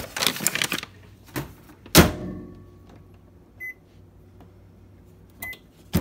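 Brown paper bag crinkling as it is pushed into a microwave oven, then a loud clunk about two seconds in as the door is shut. Two short keypad beeps follow as the timer is set for one minute.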